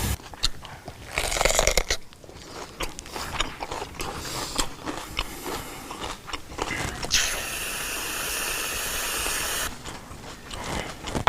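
Crunchy food being eaten and handled, with irregular crackles and clicks, a louder crackling burst about a second in, and a steady hiss lasting about two and a half seconds past the middle.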